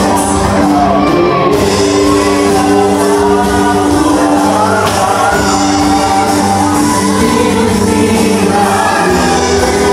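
A live Christian worship song: a band with guitars and drums plays while several singers on microphones sing together, in a large hall.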